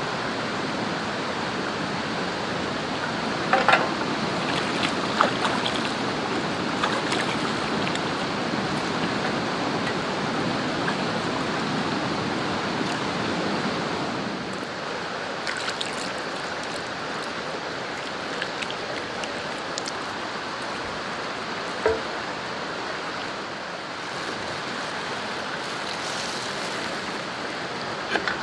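Steady rush of a shallow river running over rocks, a little quieter from about halfway through, with a few sharp scuffs and clicks of boots on rock.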